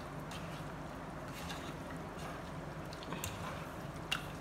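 Bare hand squishing and kneading raw chicken pieces in a yogurt marinade in a steel bowl: soft wet squelches, a few light ticks and one sharp click about four seconds in, over a steady low hum.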